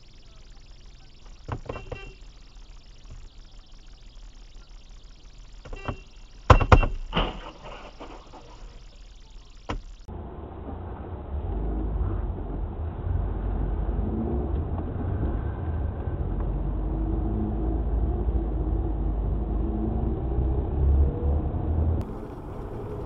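Dashcam audio from inside a car. At first the cabin is quiet, with a few knocks and one loud sharp bang about six and a half seconds in. From about ten seconds in there is the steady low rumble of a moving car's engine and tyres.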